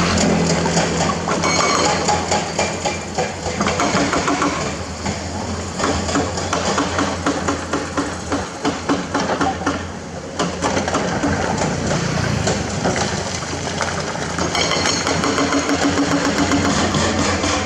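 Excavator diesel engine running under load while a hydraulic breaker hammers rapidly on hard limestone, a fast, continuous rattle of blows.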